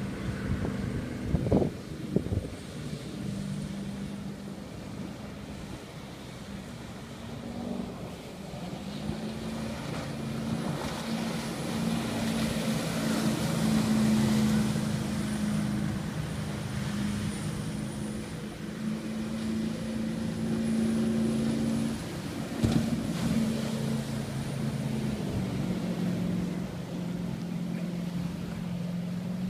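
The SilverBreeze 8.5 m aluminium fast tender's 450 hp diesel waterjet running at speed in a pass-by. The steady engine note grows louder toward the middle as the boat comes close, then eases as it moves away, with a thin high whine over it through the middle.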